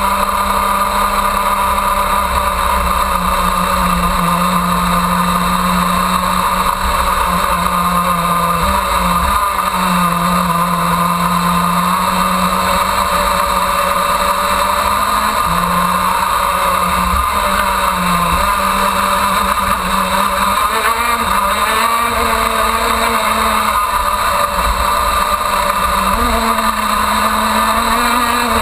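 A KZ2 shifter kart's 125cc two-stroke engine at racing speed, recorded on board and loud throughout. Its note drops and climbs back up several times as the driver works the throttle and gears through the corners.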